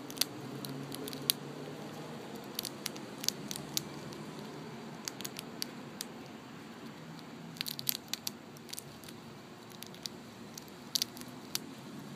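Chipmunk gnawing at an in-shell peanut held in its paws: sharp little cracks and clicks of the shell, coming irregularly in short clusters.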